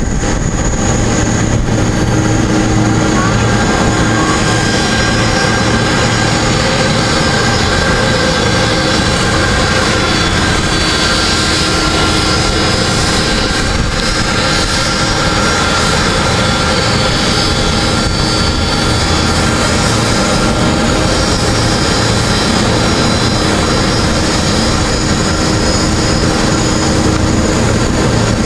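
Airbus A330-223's Pratt & Whitney PW4000 turbofan engines running steadily at taxi power. A continuous jet rumble carries a whine of several steady tones.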